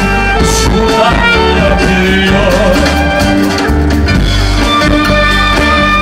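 Live band music: a tenor singing a Turkish folk-pop song, with violin and other instruments over a steady bass.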